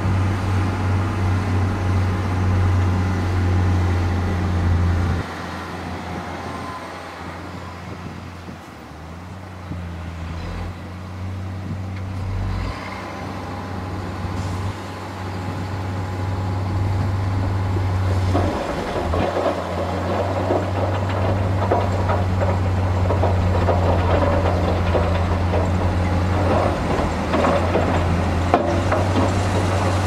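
Heavy diesel dump trucks running as their tipper beds are raised to unload dirt. A steady low engine drone fades about five seconds in and comes back, and a gritty rattling joins it past the halfway point.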